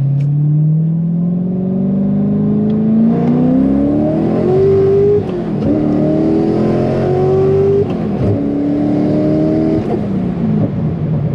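Rear-mount twin-turbo C6 Corvette V8 at full throttle, heard from inside the cabin. Its revs climb steadily in second gear, then drop sharply about five seconds in at a no-lift shift to third, and climb again. After a second brief dip near eight seconds, the revs rise once more and fall away near the end as the throttle comes off.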